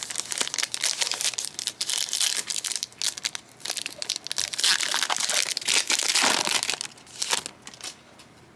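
Plastic foil wrapper of a 2023 Bowman Platinum baseball card pack being torn open and crinkled, a dense crackle of plastic that stops about seven and a half seconds in.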